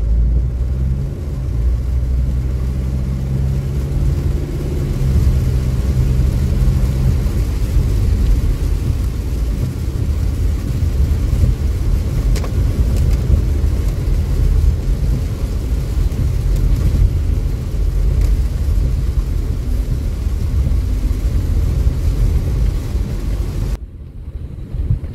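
Heavy downpour heard from inside a car's cabin: rain beating on the roof and windshield over the engine and road rumble. A steady engine hum stands out for the first several seconds, then the sound becomes a dense wash of rain and tyre noise. The sound drops off abruptly about a second before the end.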